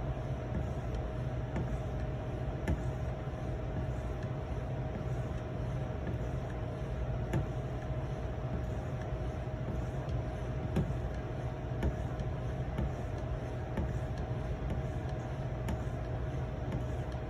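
Steady low hum with a constant mid-pitched tone, and faint scattered ticks and scrapes from a knife being worked on a 2300-grit Edge Pro sharpening stone.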